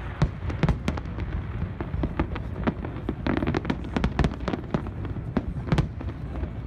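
A fireworks display: a rapid string of sharp bangs and crackling pops, several a second, over a steady low rumble.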